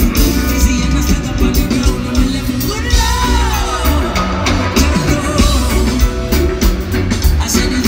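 Live reggae band playing with a lead vocal over heavy bass and a steady drum beat; the singer holds one note that rises and falls about three seconds in.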